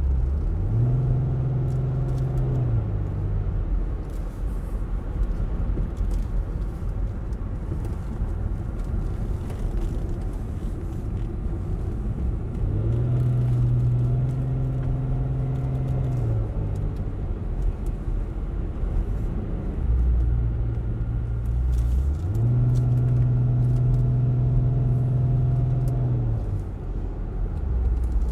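Car engine and road rumble heard from inside the cabin. Three times the engine note steps up, holds for a few seconds, then drops back as the automatic transmission shifts on a steep, curvy road.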